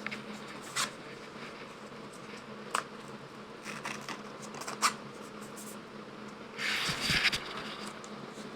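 Trading cards and a pack wrapper being handled: a few light clicks and taps, then a short rustling scrape about seven seconds in, over a faint steady hum.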